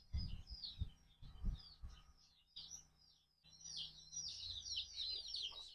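Small birds chirping and twittering in quick high notes, sparse at first and much busier over the second half. A few soft low thumps in the first second and a half.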